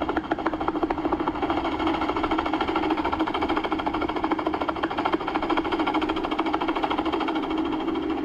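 Robinson R44 Raven I helicopter heard from inside the cabin with the doors off: a rapid, even rotor chop over the steady drone of its Lycoming O-540 engine, at high power in a slow, low approach.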